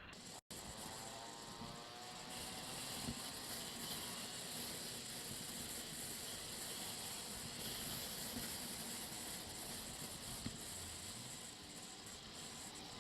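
Steady wind and road noise from a moving motorcycle, picked up by a helmet-mounted camera, with a couple of faint knocks. The sound cuts out completely for an instant about half a second in.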